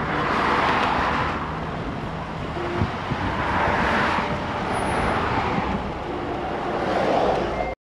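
Road noise from a moving car on a bridge: tyre and wind noise with passing traffic swelling and fading. It cuts off suddenly near the end.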